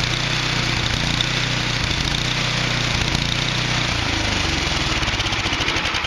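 Craftsman snowblower's small gasoline engine running steadily with a fast even beat, slowing down over the last couple of seconds as it is shut off.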